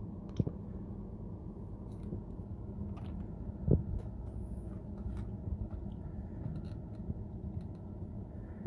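Handling noise as a Gigaset cordless phone handset and its C610 IP base are held and touched: a low steady rumble with a few faint clicks and one louder knock about four seconds in. A thump comes at the very end as a hand presses on the base.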